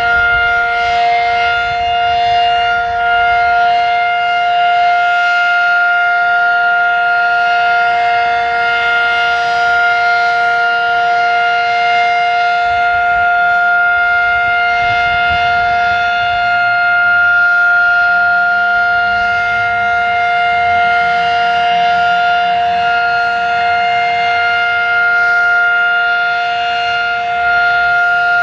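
Fedelcode Mach 5 outdoor warning siren sounding its steady alert signal at full speed during a test: a loud, unwavering chord of two tones.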